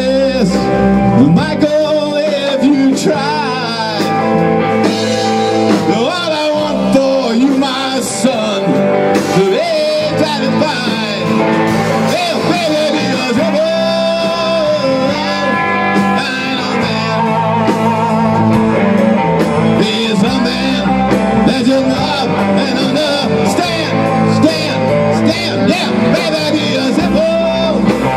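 Live rock band playing a blues-rock number: two electric guitars, electric bass and a Tama drum kit, with a sung lead vocal.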